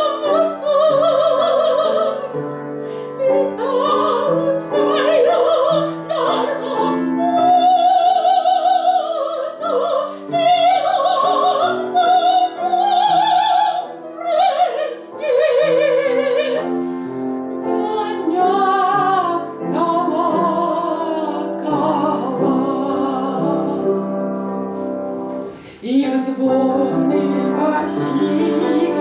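A woman singing a slow spiritual song in a classical, operatic style with strong vibrato, over piano accompaniment. About 25 seconds in, one phrase ends in a brief dip before the next begins.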